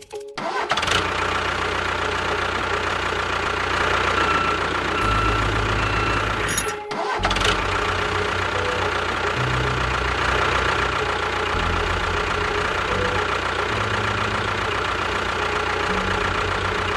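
A small engine running steadily, likely the DIY mini tractor-bulldozer's, breaking off briefly about seven seconds in.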